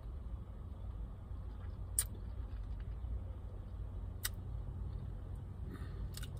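Steady low vehicle rumble heard inside a stationary car's cabin, with two sharp clicks, one about two seconds in and another a couple of seconds later.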